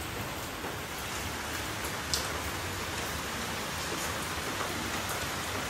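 Heavy rain falling steadily, drops striking banana leaves and wet concrete.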